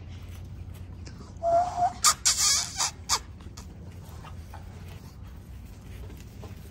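Young American bully puppies vocalising at play: a short high-pitched puppy squeal about a second and a half in, then a few sharp yaps over the next second.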